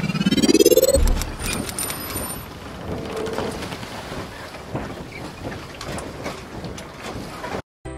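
Logo-intro sound effect: a rising sweep that ends in a low boom about a second in, followed by a dense crackling rush of noise that cuts off abruptly near the end, where bell-like music notes begin.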